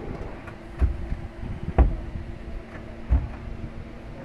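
Three dull knocks of melamine drawers being pushed shut by hand, the second the loudest, over a steady low hum.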